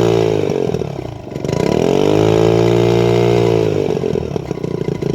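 Honda 2.3 hp outboard's small four-stroke engine running, started first time after its carburetor was cleaned. The revs rise and fall twice, dropping low about a second in, then settle to steadier, lower running near the end.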